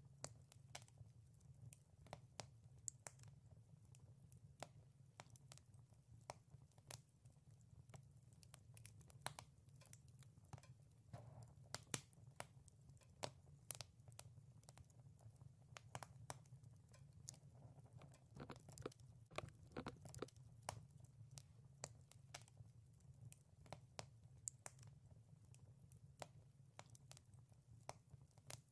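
Faint wood fire crackling, with irregular sharp pops scattered throughout over a low steady rumble.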